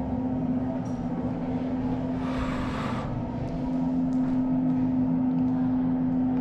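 Restroom ventilation fan running with a steady droning hum, one strong low tone over it. About two seconds in, a short breathy exhale of smoke.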